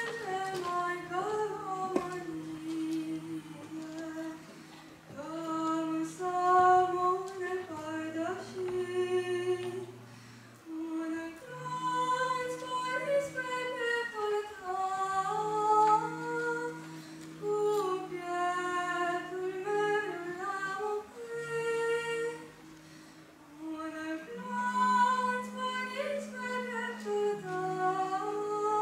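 A boy singing a slow song into a microphone, his unbroken voice carrying the melody over long held low notes of accompaniment that shift pitch between phrases.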